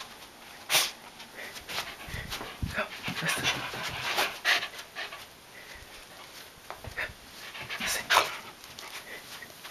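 Shetland sheepdog panting close to the microphone in uneven breathy puffs, with two sharp knocks about a second in and near the end.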